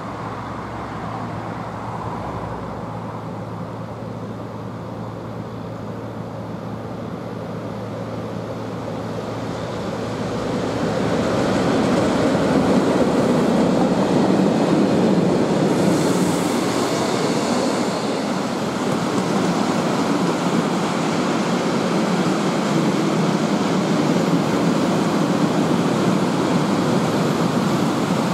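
Locomotive-hauled freight train of tank wagons passing: a steady low hum from the approaching locomotive, then from about ten seconds in a louder, even rumble of wheels rolling on the rails as the wagons go by.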